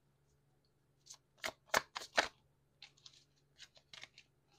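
A deck of oracle cards being shuffled by hand: about a second in, a quick run of sharp card slaps, then lighter flicks and ticks as a card is pulled from the deck.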